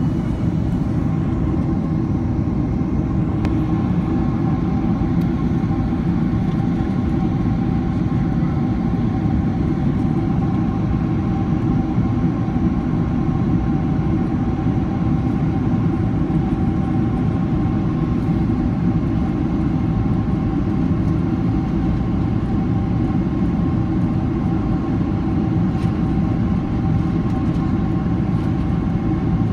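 Steady cabin noise of a Boeing 767-300ER in flight, heard from a window seat over the wing: a deep, even rumble of engines and airflow, with two steady tones from the engines running through it.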